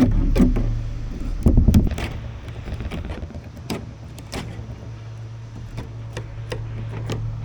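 Blue crabs being cleaned by hand, shells pried and cracked apart: a few sharp cracks and clicks, the loudest cluster about a second and a half in, over a steady low hum.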